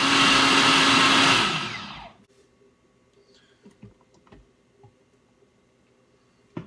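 Countertop blender running on a green smoothie. It is switched off about a second and a half in, and the motor winds down within a second. After that come a few light clicks and knocks as the lid and jar are handled.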